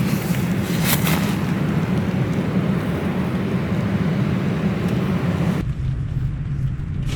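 Storm wind and heavy rain: a steady rushing hiss over a deep rumble of wind buffeting the microphone. About five and a half seconds in, the hiss drops away suddenly and the low rumble carries on.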